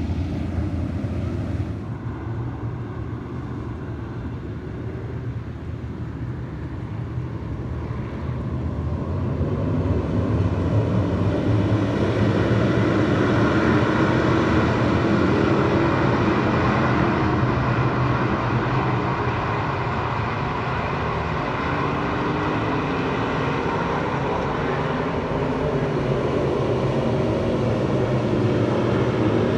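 Dirt-track race car engines running hard at the track, getting noticeably louder about ten seconds in.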